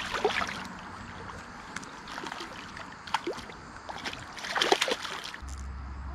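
A hooked rainbow trout thrashing at the water's surface against the bank, splashing in several short bursts, the loudest near the end.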